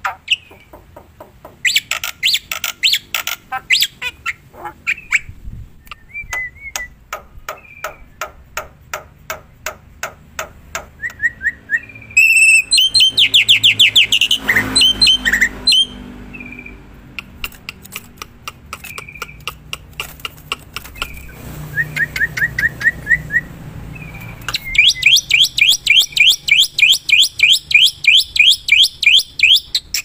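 Black-winged myna (jalak putih) singing without a break: long trains of sharp, rapidly repeated chattering notes with a few short whistled notes between them. The song is loudest in a fast run about twelve seconds in and again from about twenty-five seconds in.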